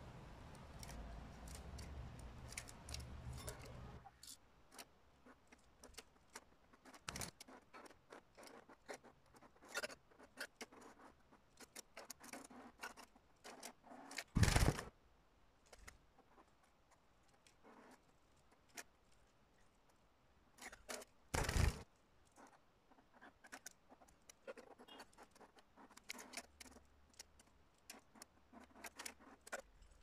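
Caged canaries moving about: scattered small clicks, taps and scratches of feet and beaks on perches, wire and seed, with two louder brief rustles, one about halfway through and one about two-thirds of the way through. No song.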